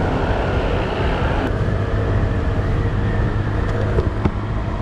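Honda Click 125i scooter cruising, its single-cylinder engine running under a steady rush of wind and road noise on the camera microphone. Two sharp clicks about four seconds in.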